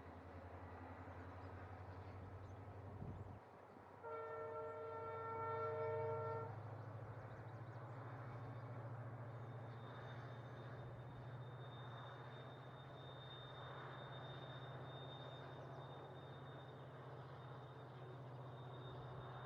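Diesel locomotive hauling a passenger train, its engine running with a low steady hum, and one horn blast of about two seconds around four seconds in.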